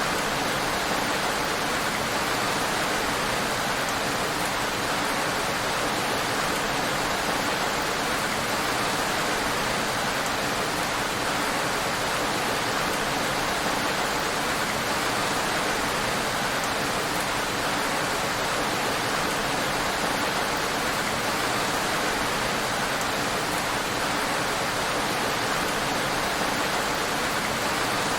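Heavy rain falling steadily, an even hiss with no single drops standing out.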